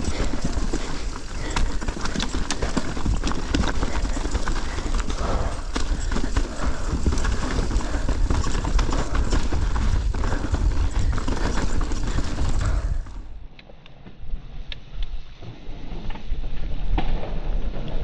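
Mountain bike clattering over rocky trail: a fast, uneven run of knocks and rattles from tyres striking rock and the bike shaking, over a steady rumble. About 13 seconds in the sound drops briefly and then returns duller.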